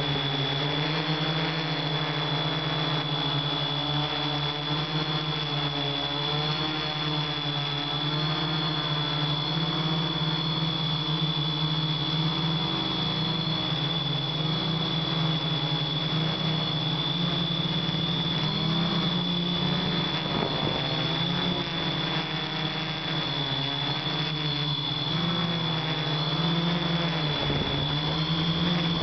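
Hexacopter drone's six electric motors and propellers whirring steadily close to the onboard camera as it climbs, the pitch wavering gently up and down with throttle changes, with a steady high whine above.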